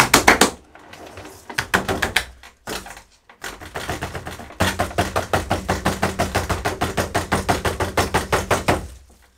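Rapid, even knocking against a self-watering plant pot, about seven knocks a second, settling the loose mineral substrate and closing air pockets around the roots. A few scattered knocks and rattles come first; the steady run of knocking starts about four and a half seconds in.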